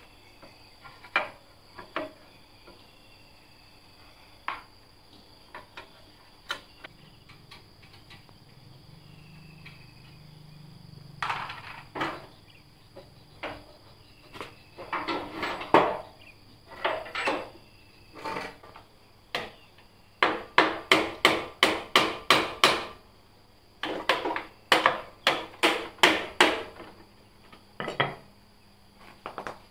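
Metal hand tools knocking and clinking against a Honda Dream 110cc engine: scattered knocks at first, then in the second half runs of rapid ringing metallic taps, about four a second.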